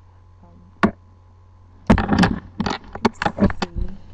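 Handling noise on the camera's microphone: a single sharp click about a second in, then about two seconds of irregular bumps, knocks and scrapes as the camera is picked up and moved. A faint steady mains hum underneath.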